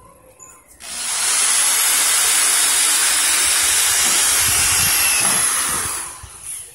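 Corded electric drill running, boring into pine wood: a loud, steady, noisy whir that starts about a second in and dies away near the end.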